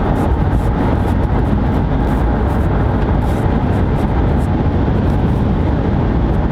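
A loud, steady low rumble of noise with no clear pitch or rhythm.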